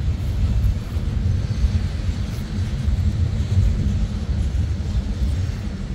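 Norfolk Southern manifest freight train's cars rolling past with a steady low rumble.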